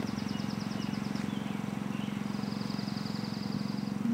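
A steady low motor hum with a fast, even pulse, like a small engine running, with a bird's high rapid trills of short repeated notes over it, one at the start and a longer one past the middle.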